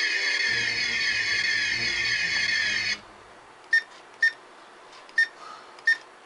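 A Star Trek boomerang phaser prop's electronics playing a loud, buzzing, warbling phaser sound effect through its small speaker, which cuts off suddenly about three seconds in. Four short high beeps follow, the phaser's diagnostics signal showing the basic function works.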